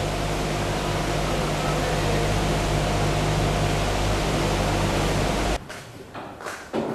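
Steady hiss of steam flowing through the supply valve and piping into a steam-heated wax press for old black combs, with a low hum underneath. It cuts off suddenly near the end, leaving a few faint knocks.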